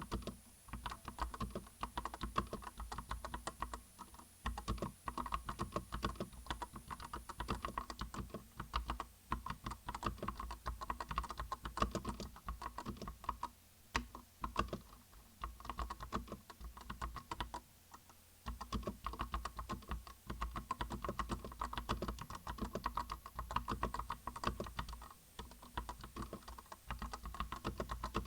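Fast typing on a Vortexseries VX7 Pro tenkeyless mechanical keyboard with Outemu Red linear switches: a dense run of keystroke clacks with a few short pauses.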